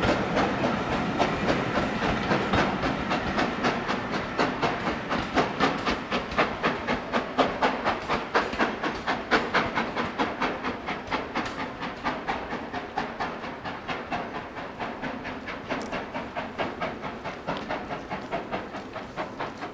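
Passenger coaches behind a steam locomotive clattering over rail joints as the train passes: a steady, rapid clickety-clack of wheels that fades as the train draws away. Steam hiss from the locomotive can be heard at first.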